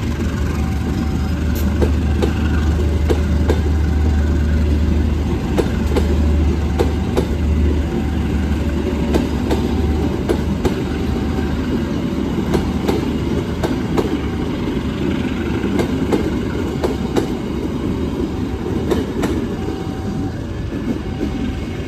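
Long train of passenger coaches passing close, the wheels clacking steadily over rail joints. A deep locomotive engine rumble fades out about eight seconds in. Throughout, a level-crossing warning bell rings in two alternating tones.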